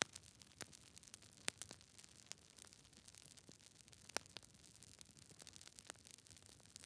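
Wood fire crackling: irregular sharp pops and snaps over a soft, steady hiss, with a few louder pops at the start, about a second and a half in, and about four seconds in.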